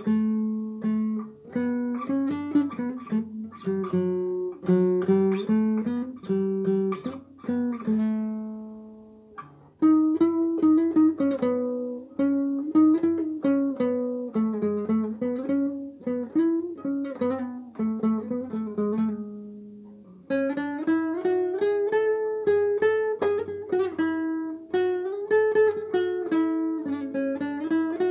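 Solo classical nylon-string guitar fingerpicking a Rumelian Turkish folk melody. It plays in phrases, with a held note dying away about nine seconds in and again about twenty seconds in.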